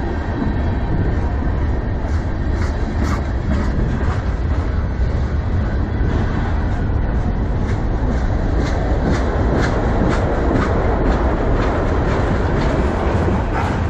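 Freight train cars (tank cars and covered hoppers) rolling past close by: a steady, heavy rumble of steel wheels on rail, with a run of sharp clacks as the wheels cross rail joints.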